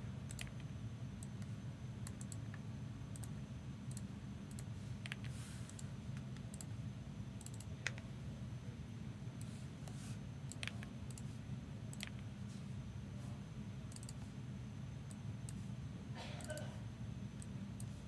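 Scattered, irregular clicks of a computer mouse and keyboard over a steady low electrical hum, with one sharper click about eight seconds in.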